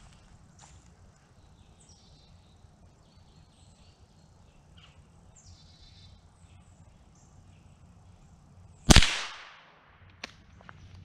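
.22 rifle firing a single shot about nine seconds in: one sharp crack that dies away over about half a second. A small click follows about a second later.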